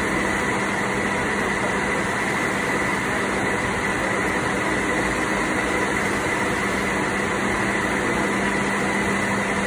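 Steady hum of running machinery with a constant high-pitched whine over it, unchanging throughout.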